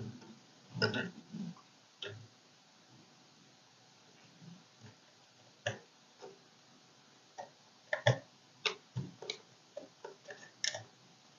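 Light, irregular clicks and taps of hands handling small plastic DuPont jumper-wire plugs and a circuit board in its metal drive case, with a few soft handling rustles. The clicks come sparsely at first and cluster more thickly in the second half.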